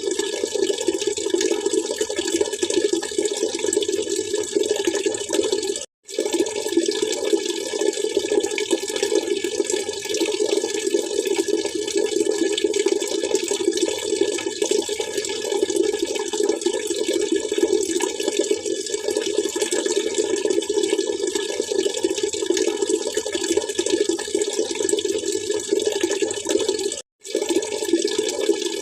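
Continuous splashing, trickling water, a steady dense rush that cuts out to silence for a moment twice, about six seconds in and near the end.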